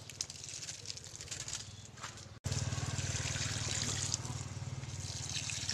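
Liquid fertilizer trickling from a watering can's spout onto the soil of potted caladiums, a steady pour. A little over two seconds in it cuts out for an instant and comes back louder.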